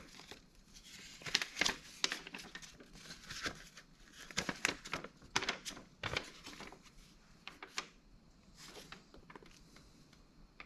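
Crinkling and rustling of a connecting-rod box and its packaging being handled and turned over, with scattered light clicks and knocks.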